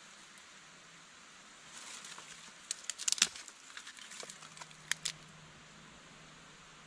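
Thin dry twigs being snapped and handled by hand: a run of sharp cracks and rustling, loudest about three seconds in, with two more snaps about five seconds in.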